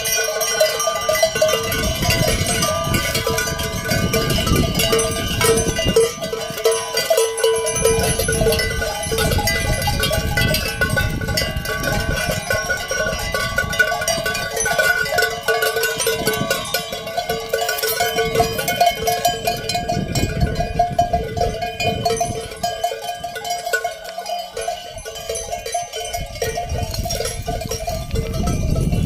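Many livestock bells on a moving flock of sheep and goats clanking continuously, their overlapping ringing tones blending into one steady jangle.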